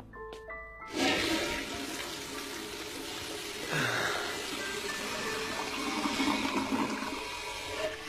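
Water rushing, starting suddenly about a second in and going on steadily.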